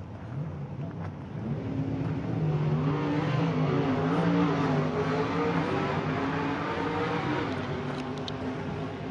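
Car engine running with a low, slightly wavering pitch. It grows louder over the first few seconds and then fades slowly toward the end.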